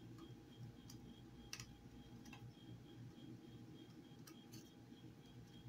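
Near silence: a few faint scrapes of cheese being grated on a handheld metal grater, over a faint, steady, high ticking several times a second.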